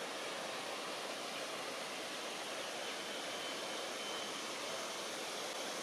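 Steady, even hiss of outdoor background noise with no distinct events, and a faint thin high tone about halfway through.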